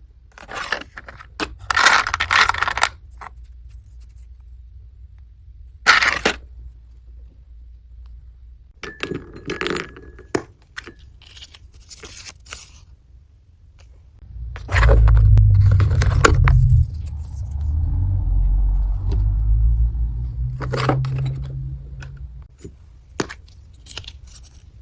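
Packaging and small items being handled: scattered rustling, scraping and light clinks, with a stretch of heavy low rumbling handling noise in the middle.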